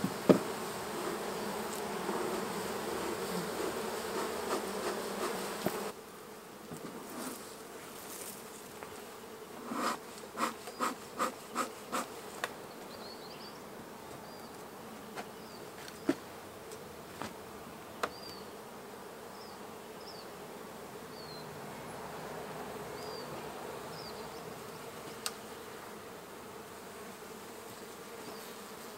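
Honey bees buzzing around an opened hive: a dense, steady hum close by, which drops suddenly to a thinner buzz about six seconds in. About ten seconds in there is a quick run of six knocks.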